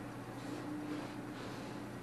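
Room tone with a steady low hum, and a few faint, soft handling noises as small parts are worked on a porcelain toilet bowl.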